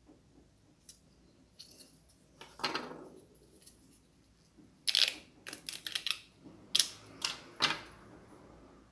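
Small hard clicks and a short scrape from handling a plastic remote control and small tools at close range: one scrape about a third of the way in, then a quick run of about seven sharp clicks and taps in the second half.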